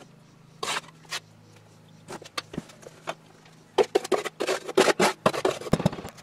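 Handling knocks on a wooden mould flask, then a quick run of thuds from about four seconds in as a hand rammer packs molding sand into the cope.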